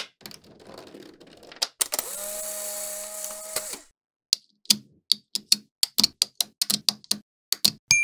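Small neodymium magnetic balls clicking and snapping together as strips of them are set onto a magnetic-ball structure, with a run of sharp clicks, about three or four a second, in the second half. In the middle, a steady hiss with a held low hum lasts about two seconds.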